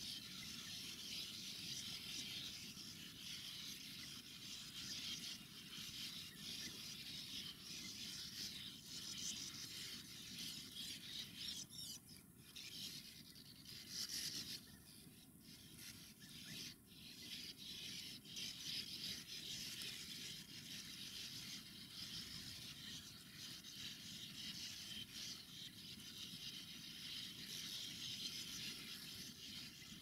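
A sand martin colony calling: a continuous dense chatter of many dry, high twitters from birds at their nest burrows. The chatter thins and drops away for a few seconds midway, over a low background rumble.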